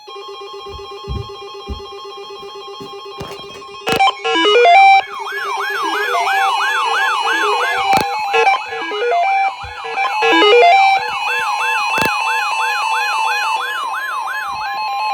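Electronic emergency alert tones: a steady multi-tone alert sound, joined about four seconds in by a wailing electronic siren that sweeps up and down about twice a second, with high electronic warbling above it. Sharp clicks come every few seconds.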